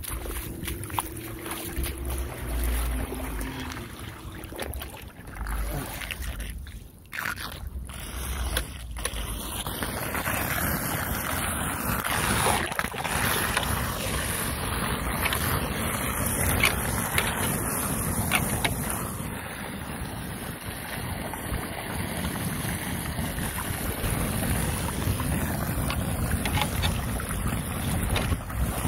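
Floodwater draining and swirling into a street storm drain just unclogged of leaves: a steady rush of water. Gusts of wind rumble on the microphone, strongest in the first eight seconds.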